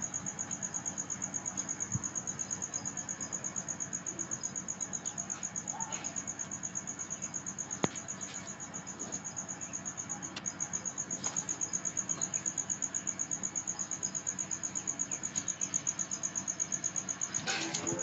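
A cricket chirping steadily: a high, rapid, evenly pulsed trill that keeps going without a break, with one sharp click about eight seconds in.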